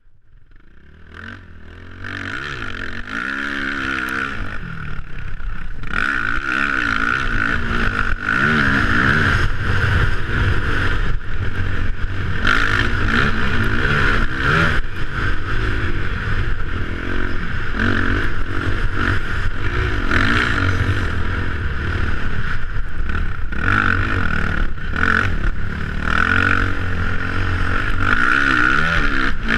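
Motocross bike engine revving up and down as it is ridden round a dirt track, heard close from an onboard camera. The sound fades in over the first few seconds, then stays loud, with the engine pitch rising and falling as the rider works the throttle.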